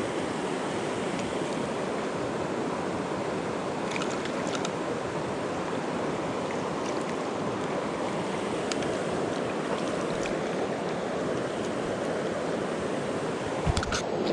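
Mountain river water rushing steadily, with a few light clicks now and then.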